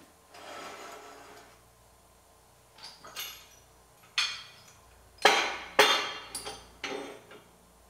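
Heavy steel frame-rack clamps being shifted into place under a car: a short scrape, then several sharp metal clanks and knocks with a brief ring, the loudest a little past five seconds in.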